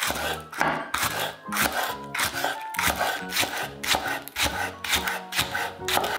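Chef's knife slicing green onion on a bamboo cutting board: quick, regular knocks of the blade through the stalks onto the wood, about three a second, over background music.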